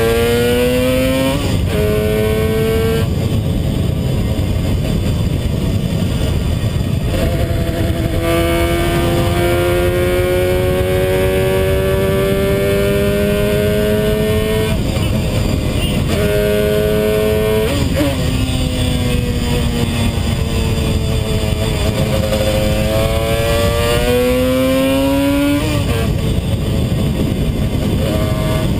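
1975 Yamaha RD350's two-stroke parallel-twin engine under way on the road. Its note rises and falls with the throttle and breaks off and picks up again several times.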